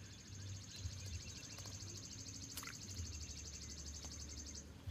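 A bird's high, rapid, dry trill held for about four and a half seconds, with a low wind rumble underneath and one brief click about halfway through.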